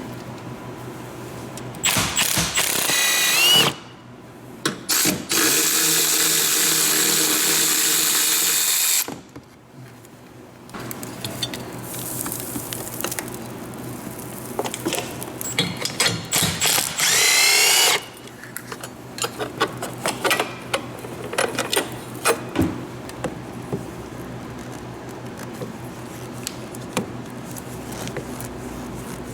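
Handheld power driver spinning fasteners loose in several runs of a few seconds each, some rising in pitch as it spins up, the longest about three and a half seconds; this is the battery being unbolted for removal. Between and after the runs come lighter clicks and clinks of metal parts being handled.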